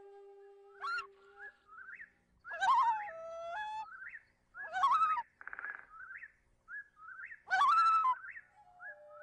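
Background music: a held flute note that ends about a second and a half in, followed by a run of short bird-like chirps and whistled calls rising in pitch, with a brief trill in the middle.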